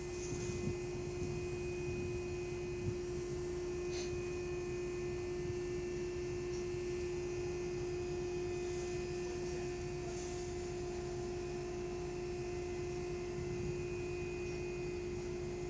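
The rescue boat davit's motor runs with a steady, even hum as the davit slews the boat, over a low rumble.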